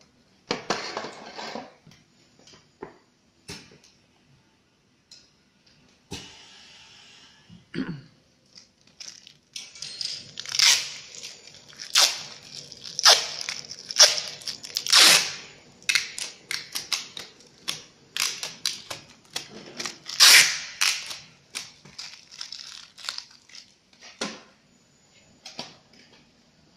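Two-colour pad printing machine being handled and adjusted: irregular clicks and knocks mixed with short hissing bursts, busiest through the middle stretch.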